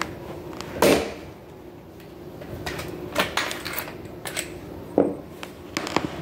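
Scattered knocks and clicks of a door sweep and tools being handled against the bottom of a door while the sweep is fitted and marked. The loudest knock comes about a second in, with a quick run of lighter clicks a little past the middle and a few more near the end.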